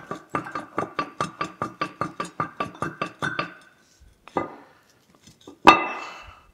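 Heavy rusty cast-iron gear of an old cane mill being rocked by hand on its shaft, knocking metal on metal in a quick run of ringing clinks, about five a second. After a pause come one more knock and then a single louder clank that rings on. This is the stuck gear being worked loose to pull it off.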